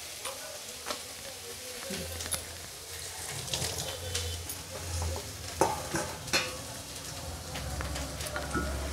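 Onion and garlic paste sizzling in hot oil in a metal kadai, with a few sharp knocks and scrapes of a metal spoon against the pan.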